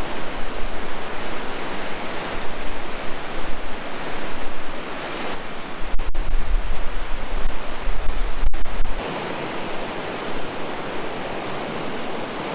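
Steady rushing roar of the River Dee in flood, white water pouring through the arches of a stone bridge. A stretch of low wind rumble on the microphone comes in the middle.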